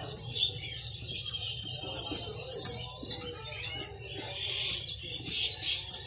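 Many caged songbirds chirping and twittering over one another, with short high calls and trills overlapping throughout.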